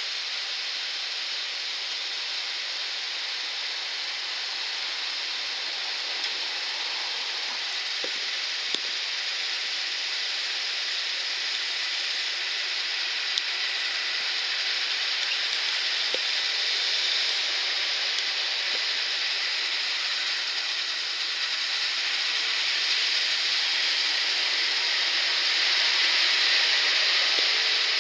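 Claas combine harvester working through barley: a steady, hissing machine noise that grows gradually louder toward the end, with a few faint clicks.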